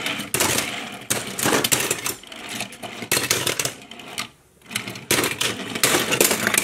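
Die-cast toy cars clattering and clicking against each other and the tabletop as they are handled, with a short lull a little after four seconds in.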